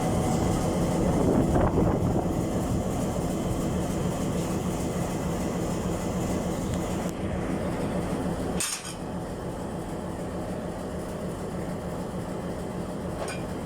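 Diesel locomotive engine running steadily with a low hum, swelling briefly in the first couple of seconds. One sharp click comes about two-thirds of the way through, after which the engine sounds a little quieter.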